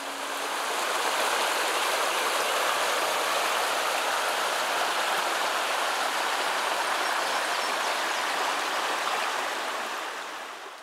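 Shallow creek running: a steady sound of flowing water that fades in at the start and fades out near the end.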